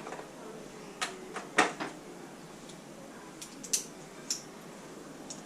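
A few separate sharp metallic clicks and knocks from hand tools working on a Honda 150 motorcycle engine while the cam chain tensioner bolts are removed. The loudest knock comes about a second and a half in.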